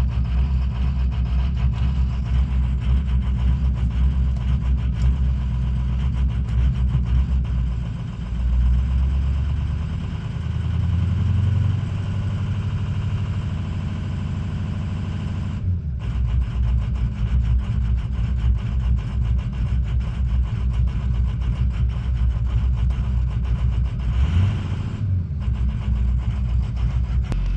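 Ford 6.0L Power Stroke V8 diesel idling roughly, with the engine note shifting between about 8 and 12 seconds in. The owner takes the rough idle for a sign of excessive injection control pressure from a faulty IPR valve.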